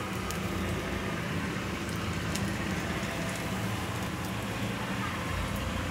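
Butter sizzling and faintly crackling under sandwiches toasting in a frying pan on a low gas flame, with a steady low hum underneath.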